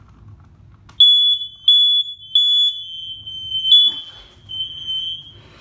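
Universal MDS107 smoke alarm sounding under test: a shrill high-pitched beep three times, a short pause, then the three-beep pattern starting again. A second alarm tone, slightly lower in pitch, joins in and sounds steadily through the second half.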